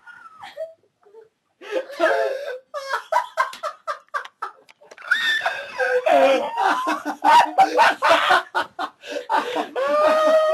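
Hard human laughter in rapid, uneven bursts with some high-pitched squealing, beginning about two seconds in after a short lull.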